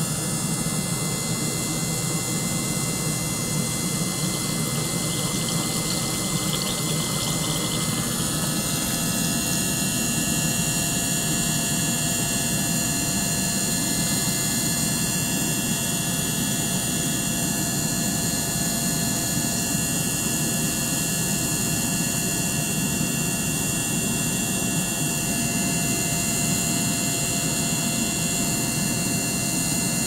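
Small liquid-circulation pump running steadily, water streaming and bubbling through the tank, with several faint, steady high-pitched whines over the flow.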